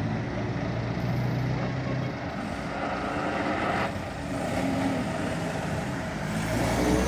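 Engine of a vintage tanker lorry running at low revs as the lorry pulls out into the road. A car passes close by near the end, and the sound grows louder.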